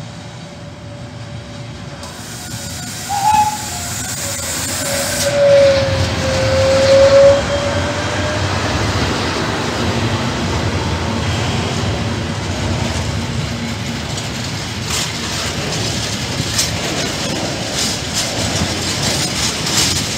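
Freight train hauled by a pair of E.652 electric locomotives running past, then a long line of hooded coil wagons rumbling by. A long tone about five seconds in sags in pitch and comes back up. In the second half the wheels click sharply over the rail joints.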